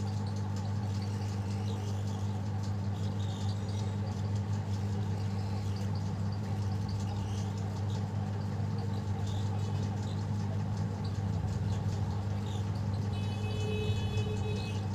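Hot air rework gun blowing steadily with a constant low hum, heating a mobile phone's power IC to solder it onto the board.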